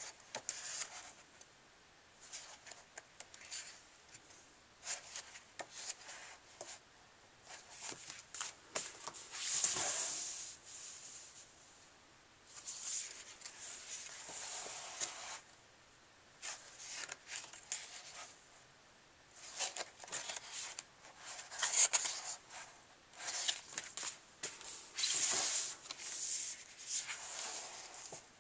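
Paper pages of a large paperback colouring book being turned and handled: a string of irregular paper swishes and rustles with small crinkles and clicks, several of them louder page flips, separated by quiet pauses.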